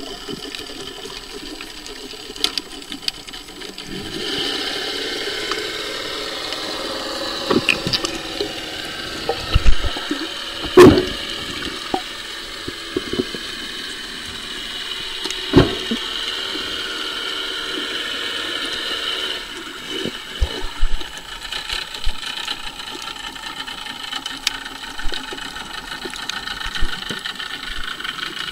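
Muffled water sound picked up by a camera under the surface: a steady rush of moving water, with a handful of sharp knocks, the loudest about ten seconds in, and small scattered clicks later.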